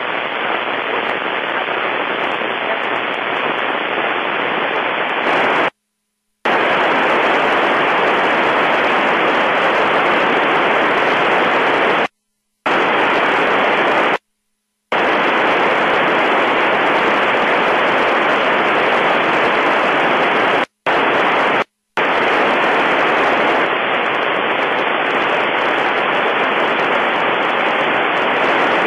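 FM receiver static: a steady, loud hiss from an Icom IC-746PRO tuned to the International Space Station's 2 m downlink with no voice on the channel. The hiss cuts out completely five times, for a fraction of a second each.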